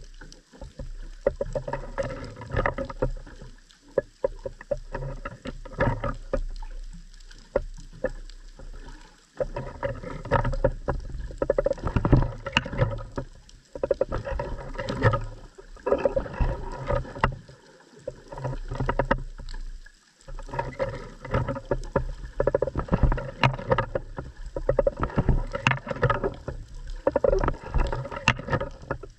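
Underwater sound picked up by a submerged camera: surging water noise with many irregular clicks and knocks and a low hum, rising and falling in loudness.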